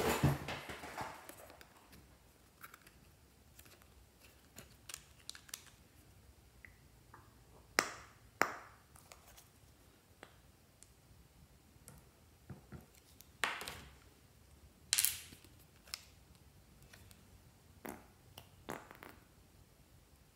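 Small plastic hand cream tubes being handled and squeezed onto slime in a glass dish: scattered short clicks, taps and squelchy squirts with quiet stretches between them.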